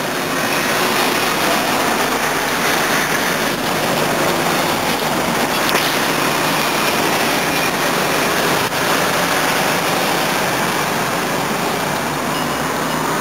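Steady street traffic noise, with engines of passing road vehicles running together in one continuous wash of sound.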